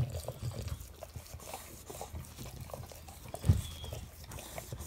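English bulldog licking a person's face and neck up close: a run of short, wet smacking licks over snuffling breaths, with one louder low sound about three and a half seconds in.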